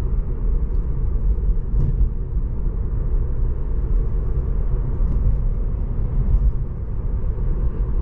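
Steady low road rumble and tyre noise heard inside the cabin of a moving Tesla, with no engine sound from the electric drive.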